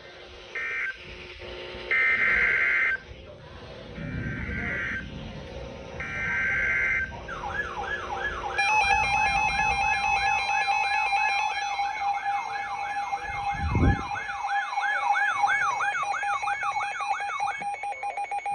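Emergency Alert System SAME data header: several short buzzy warbling bursts about a second apart. It is followed by an alert: a fast up-and-down warbling siren over a steady alert tone that holds to the end, with a low thump partway through.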